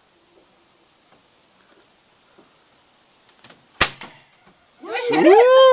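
A break-barrel air rifle fires once, a single sharp crack about four seconds in, with a fainter click just after. A second later a woman gives a loud cheer, a drawn-out 'woo!' that rises and falls in pitch.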